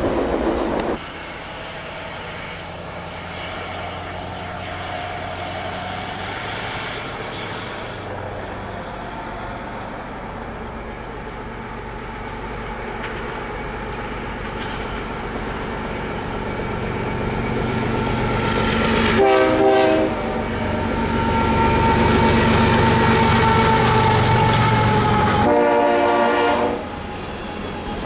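Freight train approaching and passing, its rumble building. The locomotive's horn sounds two short blasts about six seconds apart, with loud engine and wheel noise between them.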